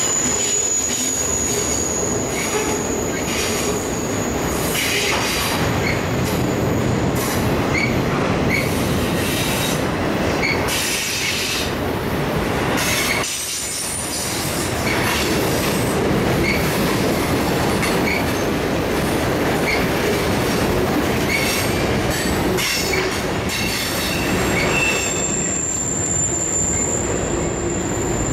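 Freight cars rolling past at speed: a steady rumble and clatter of steel wheels on the rails, with scattered clicks. A thin, high wheel squeal sounds for the first few seconds and comes back near the end.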